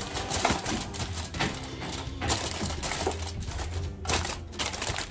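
Aluminium foil crinkling and crackling in quick, irregular bursts as it is pressed down and crimped over the rim of a disposable aluminium roasting pan.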